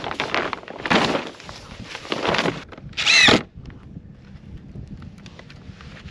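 Power drill running in short bursts, with the loudest burst about three seconds in giving a brief whine that rises and falls in pitch. After that it is quieter, with light ticks.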